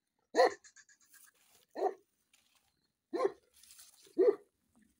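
Bully-type dog barking: four short, loud barks about a second apart.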